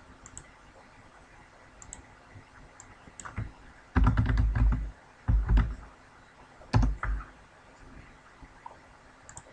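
Computer keyboard typing in three short bursts of keystrokes about four, five and a half, and seven seconds in, with a few faint mouse clicks before them.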